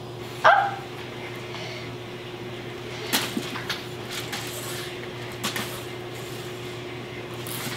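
A Yorkshire terrier gives one short yip about half a second in, followed by a few light knocks and taps as a toy cat is handled and set down on the rug, over a steady faint hum.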